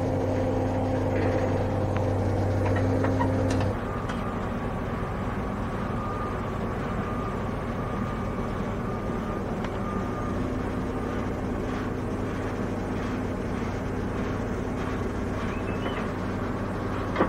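Diesel engine of heavy construction equipment running steadily. About four seconds in, the louder hum drops suddenly to a quieter, steady rumble.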